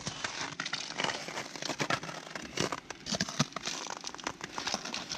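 Hand ice auger turning in an ice-fishing hole, its blades crunching and scraping through ice with a dense run of irregular crackles, a few louder crunches among them.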